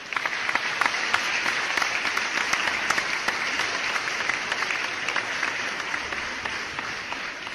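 A crowd applauding: a dense round of clapping that starts suddenly, holds steady and eases off a little near the end.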